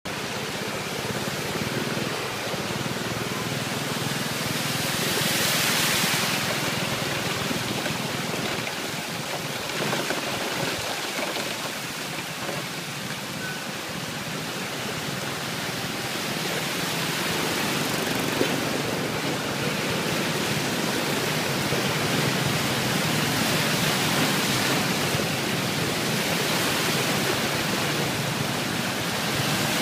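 Steady rushing and sloshing of flood water churned up by wheels driving through a flooded street, with motorcycle and car traffic under it. The rush swells twice, and there is one sharp click about eighteen seconds in.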